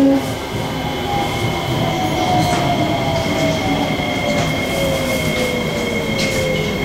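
Cabin sound of a Kawasaki-CRRC Sifang C151C train braking into a station. The IGBT-VVVF traction equipment whines in several tones that fall slowly in pitch as the train slows, over a steady rumble of wheels on rail, with two steady high tones held above.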